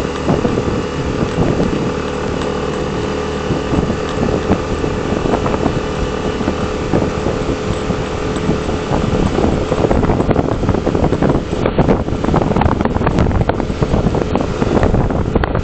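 Wind buffeting the microphone over a steady engine hum; the hum fades about halfway through and leaves rough, crackling noise.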